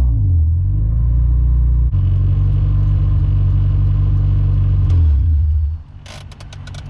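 K24-swapped Acura Integra engine running while the car drives, its pitch shifting in the first second, then holding steady before dropping off sharply near the end as the car slows. A quick run of clicks follows.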